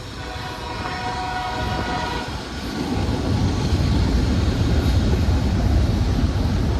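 GE diesel freight locomotives passing: a multi-tone horn chord sounds for about two seconds, then the heavy low rumble of the locomotive engines builds and stays loud as they pass close by.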